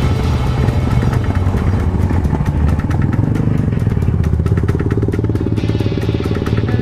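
Yamaha XT 660Z Ténéré's single-cylinder engine running steadily under way on a motorcycle ride.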